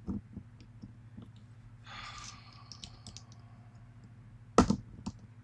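Small metal clicks and taps from handling a lock and its C-clip with small tools, with a soft breathy sigh about two seconds in and a sharp cluster of clicks near the end.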